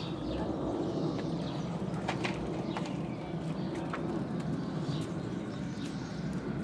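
Dobermann puppies growling in play while tugging at a rope toy, a steady low growl with a few sharp scuffs and clicks from their scrabbling on concrete.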